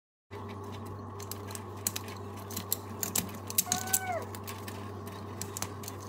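Kitchen knife and gloved hands working a raw red snapper's head over the sink: irregular crackling clicks as gills and cartilage are cut and pulled, over a steady low hum. A short squeak that bends up and down comes about four seconds in.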